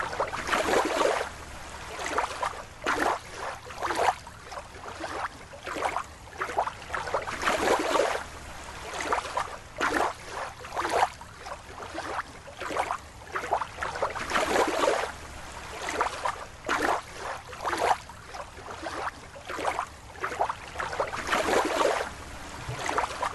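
Water sloshing and splashing in irregular surges, some swelling louder than others.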